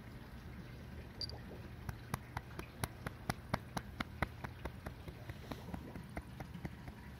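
Domestic cat growling with a low, steady rumble. Over it, between about two and six seconds in, comes a run of quick sharp clicks, about four a second, loudest in the middle.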